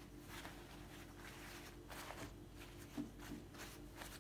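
Faint rustling and crinkling of a thin yufka pastry sheet as hands crumple and press it into a baking tray, with one soft knock about three seconds in.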